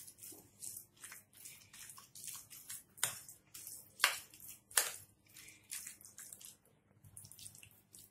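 A metal spoon stirring yogurt and grated cucumber in a glass bowl: wet stirring and scraping with repeated clicks of the spoon against the glass, a few sharper ones in the middle.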